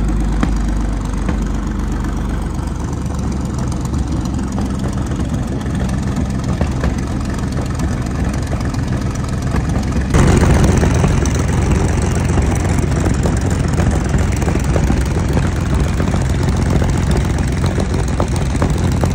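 Centurion ARV's Rolls-Royce Meteor V12 tank engine running, getting suddenly louder and harsher about halfway through. It is down on power and running like a V6, because only one carburettor is feeding the whole engine.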